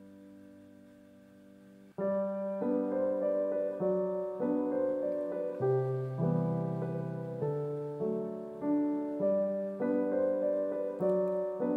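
Background piano music. A held chord fades out, then about two seconds in a new melody of struck notes begins and runs on at a gentle, even pace.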